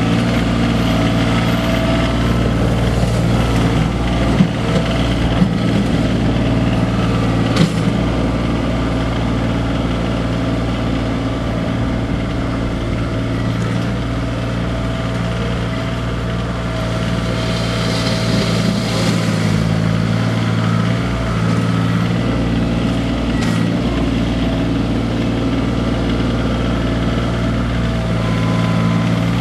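Kioti CX2510 compact tractor's three-cylinder diesel engine running steadily as it works a front loader. A few sharp knocks come in the first several seconds.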